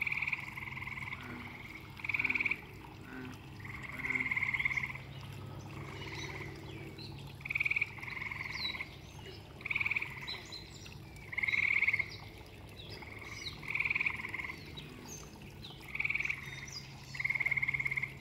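A chorus of frogs calling: short, high, pulsed trills about a second long from several frogs, overlapping and repeating every second or two.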